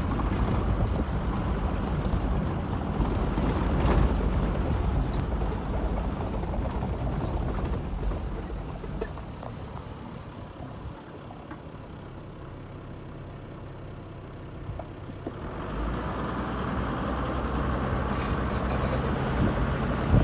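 Safari vehicle driving across grassland: a low rumble of engine and tyres, with a jolt about four seconds in. It quietens for several seconds in the middle and picks up again after about fifteen seconds.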